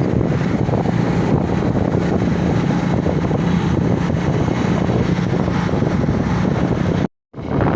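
Steady wind buffeting the microphone by the sea, with a steady low hum underneath. The sound cuts out completely for a moment near the end.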